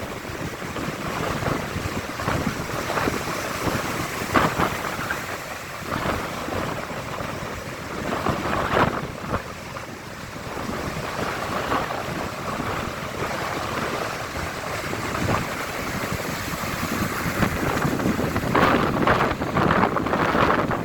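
Strong wind buffeting the microphone over surf breaking on the beach, in irregular gusts that grow louder near the end.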